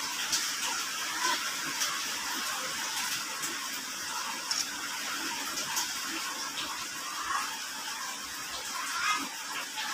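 Steady, even hiss of background noise, with faint scattered clicks from hands handling a phone and a plastic sheet.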